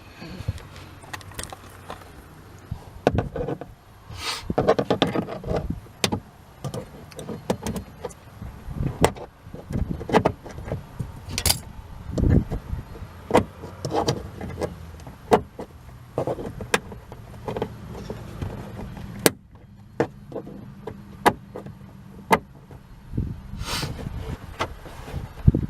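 A screwdriver and plastic trim tool prying at plastic push-pin clips in car trunk trim: irregular clicks, taps and short scrapes of tool on plastic, with a stubborn clip resisting.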